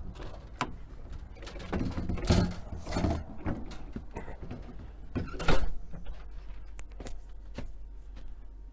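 Knocks and footfalls as someone climbs the entry step into a motorhome and handles its entry door, with the loudest thumps about two and a half and five and a half seconds in.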